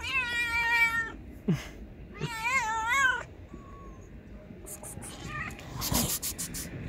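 A street cat meowing loudly: two long meows about two seconds apart, the second wavering up and down in pitch. A few sharp clicks follow near the end.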